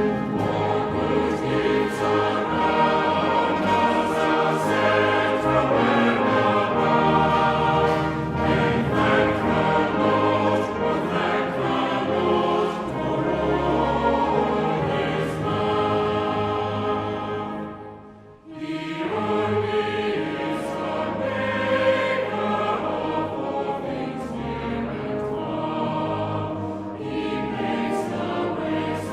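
Choral music: a choir singing with instrumental accompaniment. About two-thirds of the way through it fades almost out for a moment, then starts again.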